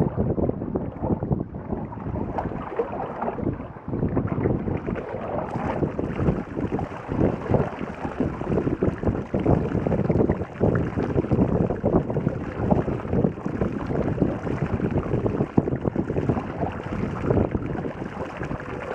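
Wind buffeting the microphone over the noise of a boat on choppy lake water, with a faint steady hum in the second half.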